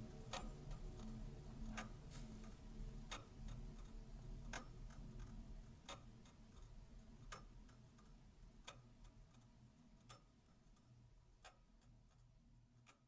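Slow, regular clock-like ticking, a sharp tick about every second and a half with fainter ticks between, over a low sustained drone; the whole thing fades out to silence.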